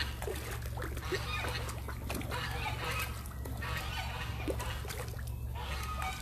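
A school of small fish splashing and breaking the surface of a pond as they feed, many small splashes close together. Farm fowl call briefly now and then.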